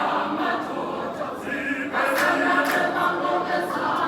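A choir singing, many voices together in a continuous sung line.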